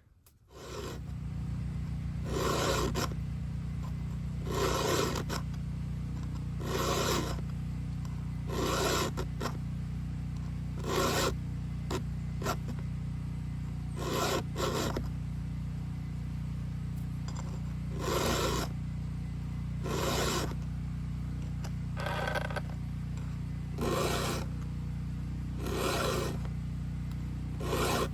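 Hand file rasping across the cutter teeth of a DeWalt 20V chainsaw's chain during sharpening: short scraping strokes about every two seconds. A steady low hum runs underneath.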